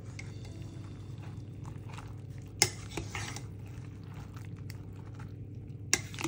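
Kitchen utensils clinking against a pot or dish: two sharp clinks about three seconds apart and a lighter one just after the first, over a steady low hum.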